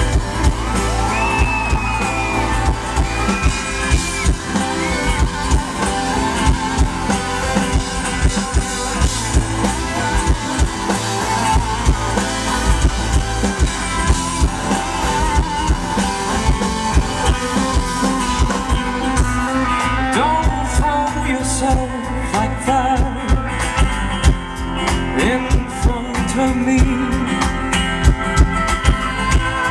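Live band playing a pop-rock song: acoustic guitar strummed over a drum kit.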